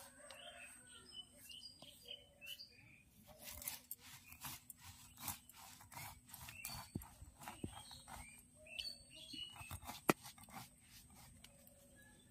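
Stone muller rocked and rubbed over a flat stone grinding slab (shil-nora), crushing dry-roasted whole spices and dried red chillies to a coarse, half-broken grind: a run of short, irregular gritty scrapes and cracks, with one sharp crack about ten seconds in. Birds chirp faintly alongside.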